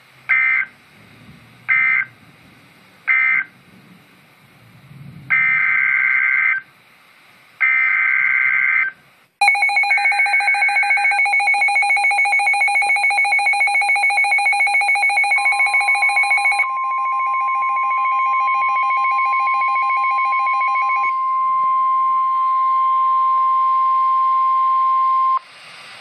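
NOAA Weather Radio Emergency Alert System tones from weather radio receivers. Three short screeching two-pitch data bursts (the end-of-message code) are followed by three longer SAME header bursts announcing a new warning, the last under the receivers' own pulsing alert alarm. Then the steady 1050 Hz warning alarm tone holds for about ten seconds and cuts off suddenly.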